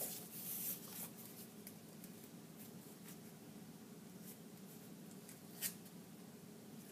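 Paper being handled: faint rustling with a few light clicks and one sharper click about five and a half seconds in, over a low steady hum.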